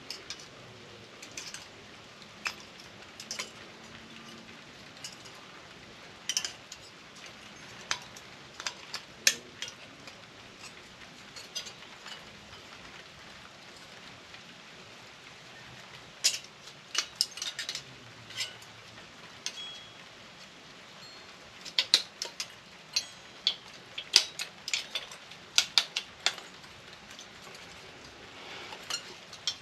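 Scattered small metallic clicks and clinks of hand tools working loose parts from a scrap microwave, coming in irregular clusters over a steady faint hiss.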